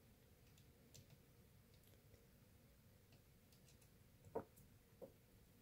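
Near silence with a few faint clicks from a small hex driver working a 1.5 mm grub screw on an RC truck's rear sway bar, the two clearest about four and five seconds in.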